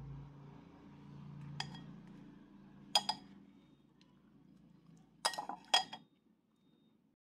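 Chopsticks and fried sausages knocking against a ceramic plate: four sharp clinks, the last two close together and loudest, over a low steady hum that stops about six seconds in.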